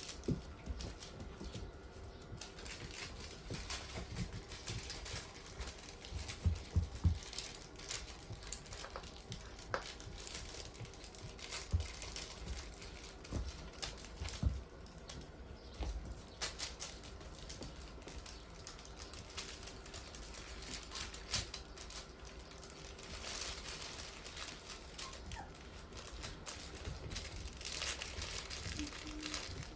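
Young puppies playing with plush and fleece rope toys on a wooden floor: scattered light thumps, paw patter and toy rustling.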